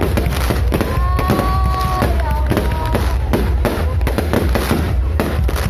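Fireworks going off in rapid succession, a dense run of bangs and crackles over a low rumble.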